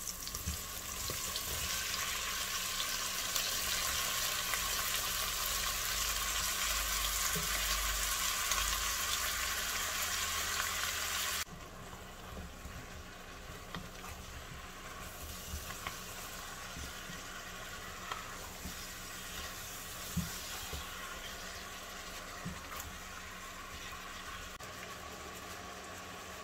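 Cubed beef frying in a hot pot with onions and peppers: a loud steady sizzle. About eleven seconds in it cuts abruptly to a quieter sizzle, with a few light knocks as the meat is stirred with a wooden spoon.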